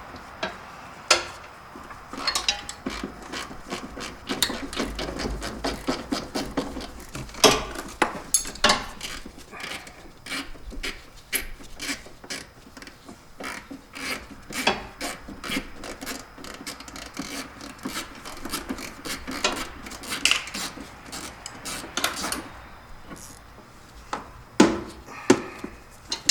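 Hand tools working on metal fasteners: irregular sharp clicks, knocks and scraping, with a few louder clanks about seven, nine, twenty and twenty-five seconds in.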